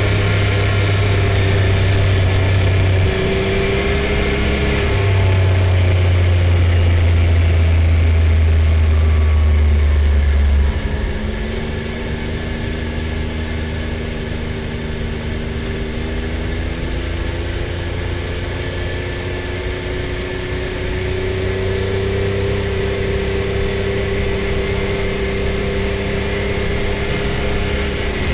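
Can-Am Maverick X3 side-by-side's engine running steadily while driving, with a heavy low wind rumble on the microphone. The rumble cuts out about ten seconds in, leaving the engine note and gravel road noise.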